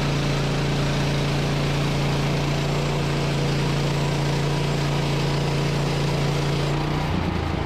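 Woodland Mills HM130 MAX portable bandsaw mill running, its engine driving the band blade through a Douglas fir log. The engine holds a steady note that drops lower about seven seconds in.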